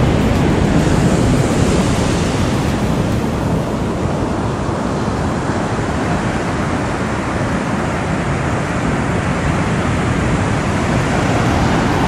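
Steady rush of ocean surf breaking on a sandy beach, with wind on the microphone.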